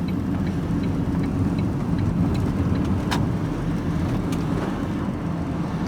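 Van engine and road noise heard from inside the cab while driving, a steady low rumble. A light, even ticking runs about two or three times a second through the first few seconds.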